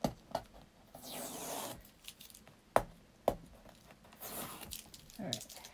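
Blue painter's tape being peeled off a clear acrylic quilting ruler, a ripping rasp twice, with a few sharp clicks and taps as the ruler and rotary cutter are handled.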